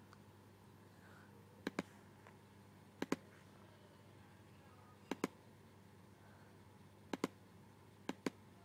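Five pairs of short, sharp clicks a second or two apart: a computer's pointer button clicked, each pair a press and release.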